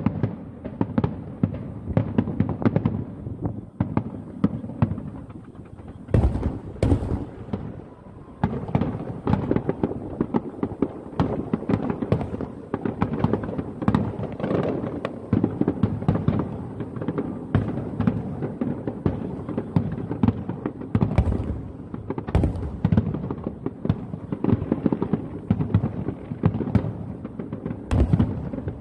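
Aerial fireworks shells bursting in rapid succession: a dense, unbroken run of booms and crackling, with several louder bangs standing out.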